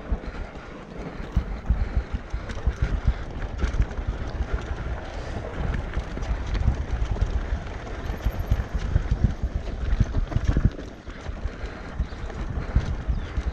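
Mountain bike riding over rough trail, heard from a bike-mounted or body-worn camera: wind buffeting the microphone, with rumble and a running clatter of knocks and rattles from the bike over bumps.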